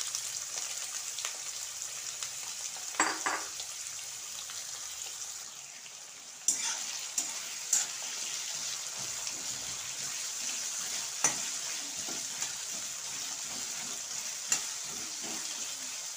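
Potato pieces sizzling steadily in hot mustard oil in a kadhai, stirred with a spatula that clinks and scrapes against the pan a few times. The sizzle drops briefly about a third of the way in, then comes back sharply.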